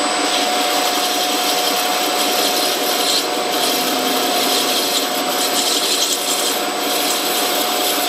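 Metal lathe turning a brass workpiece while a cutting tool is fed into it: a steady scraping hiss of the cut over the lathe's constant hum. From about three seconds in, the cutting noise turns harsher in patches.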